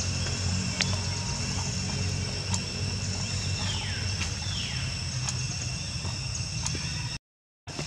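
Outdoor ambience: a steady high insect drone over a low hum, broken by a few sharp clicks and, about three and a half seconds in, two short falling calls. The sound cuts out briefly near the end.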